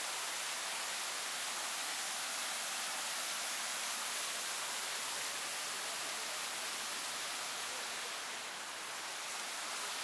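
Steady, even hiss with no distinct events, holding its level throughout.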